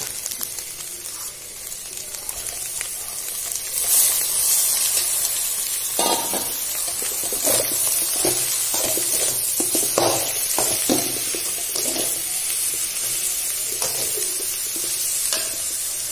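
Frying sizzle in a steel kadai as boiled shredded cabbage goes in over scrambled egg; the sizzle grows louder about four seconds in. From about six seconds comes a run of scrapes and knocks from a slotted metal spatula stirring against the pan.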